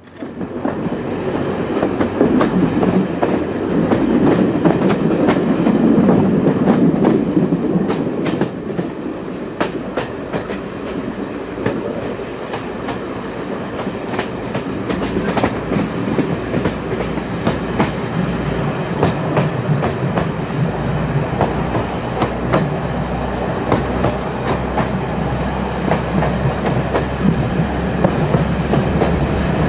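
British Rail Class 144 Pacer diesel multiple unit running on the rails, with many sharp clicks from wheels over the track. The noise is loudest over the first eight seconds, then eases into a steadier low engine rumble.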